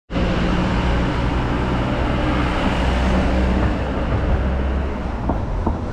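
Street traffic: a motor vehicle's engine running close by, easing off about five seconds in.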